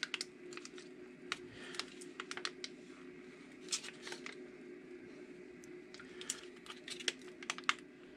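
Plastic squeeze pouch of sour cream being squeezed out onto a plate: faint, scattered crinkles and small clicks of the plastic, over a low steady hum.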